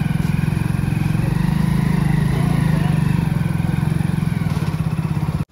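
Motorcycle engine running steadily under way, a loud pulsing drone with road noise, cutting off suddenly near the end.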